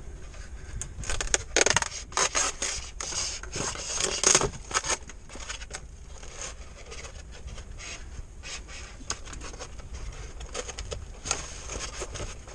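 Handling noise as a pink foam insert is pulled out of a foam flying wing's nose bay and the LiPo battery inside is reached for: rubbing and scraping of foam against foam and plastic, with small taps and clicks. The scrapes come thick in the first few seconds, then thin out to scattered clicks.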